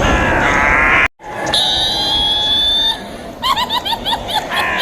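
Witch cackle sound effect: a shrill voice rising in pitch cuts off abruptly about a second in, followed by a long high held screech and then a rapid run of short high-pitched cackles, about five a second, over a steady noisy background.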